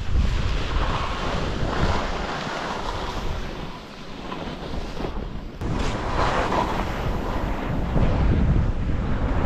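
Wind rushing over the microphone of a skier's camera during a powder descent, with the hiss of skis moving through snow. The rush eases about four seconds in, cuts out for a moment, then builds again.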